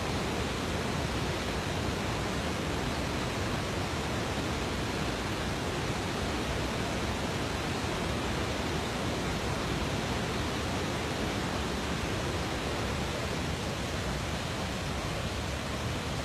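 Steady rushing of a river in flood: a muddy torrent, swollen by torrential rain, pouring over boulders and across a track.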